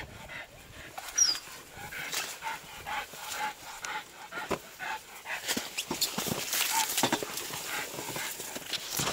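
Irregular rustling and crackling of maize leaves, stalks and grass as a hunting dog and the person following it push through the vegetation, busier in the second half.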